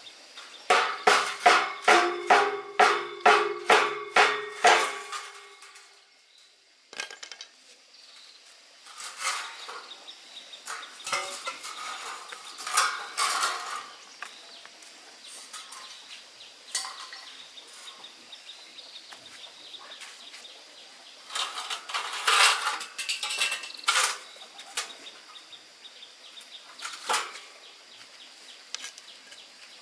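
Iron bar being struck with a hammer: about a dozen ringing metal blows, roughly three a second, over the first few seconds. After that come scattered clinks and knocks of metal being handled.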